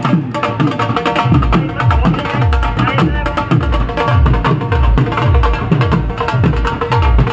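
Rajasthani folk song with a quick beat of deep drum strokes, each dropping in pitch, about three a second, under a melody.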